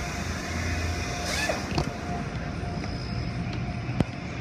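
Steady machinery noise, a low hum and even rush of the kind a car wash's equipment makes, with the low hum dropping away about a second and a half in. A sharp click comes about four seconds in.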